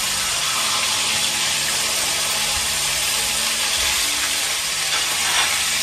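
Fish frying in hot oil in a pan, a steady sizzle.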